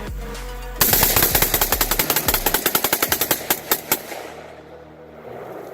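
AR-15 rifles firing a rapid string of shots, close to ten a second, starting about a second in and lasting about three seconds, with the last few shots more spaced out.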